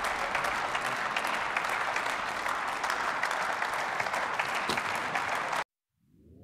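Applause from members of parliament, a dense patter of many hands clapping, which cuts off suddenly near the end. Just before the end, a rising siren wail begins.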